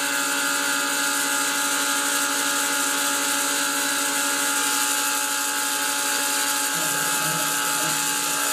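Grizzly G0704 mill's spindle and belt drive running steadily, a whine of several steady tones, while a small end mill cuts Delrin. The belt drive is a little noisy, its pulleys wobbling slightly because their bores were bored a little oversize.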